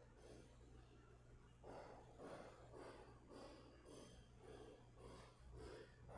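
Near silence: faint room tone with a steady low hum and soft, indistinct sounds about twice a second.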